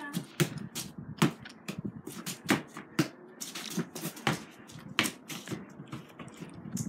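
A string of irregular light taps and knocks, one or two a second, the loudest about three and five seconds in.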